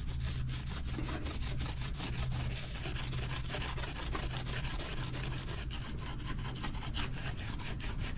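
Green abrasive scouring pad scrubbed back and forth over the flat gasket face of a Briggs & Stratton single-cylinder OHV cylinder head, a steady run of quick rasping strokes. The old gasket residue is being cleaned off the head before a new head gasket goes on.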